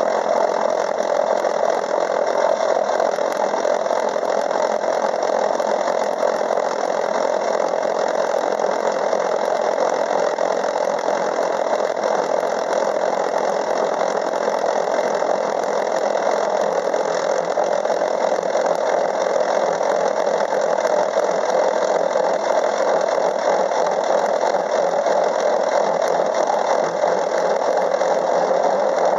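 Craftsman 6-inch metal lathe running steadily while its gear cutter cuts a tooth space in a steel gear blank.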